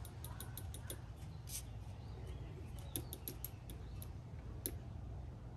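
Faint, scattered light clicks and scrapes of multimeter probe tips against a spark plug, over a low steady hum.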